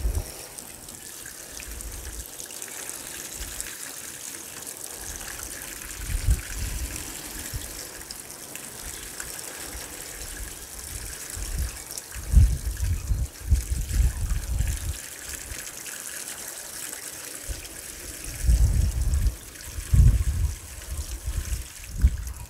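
Garden hose spray nozzle spraying water steadily onto a camper's compartment door and its seal in a leak test, the water splattering off the panel and pattering into a plastic tub below. Several low rumbles of wind on the microphone come and go, loudest about halfway through and near the end.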